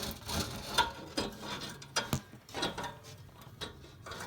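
Irregular metallic clicks and clanks of snowblower parts being handled and fitted together by hand, with one sharper knock about two seconds in.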